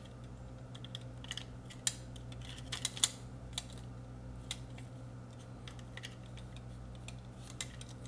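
Irregular small plastic clicks and taps as the snap tabs of a LiftMaster 888LM wall keypad's plastic housing are worked with fingers and a metal pick to release the circuit board. The sharpest clicks come about two and three seconds in.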